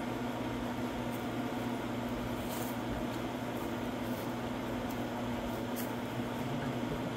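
Steady machine hum at a constant pitch, with a couple of faint clicks from parts being handled.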